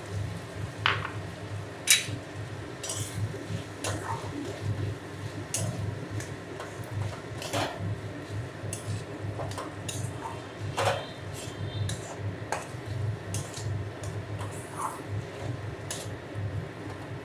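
Metal spatula stirring green peas into frying masala in a metal kadai, scraping and clinking irregularly against the pan, over a low steady hum.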